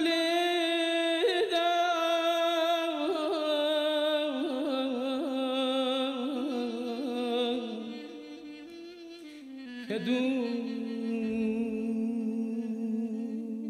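A man's solo voice singing a Kurdish folk melody with no instruments heard: long held notes with wavering ornaments, stepping down in pitch and fading, then a new phrase beginning about ten seconds in.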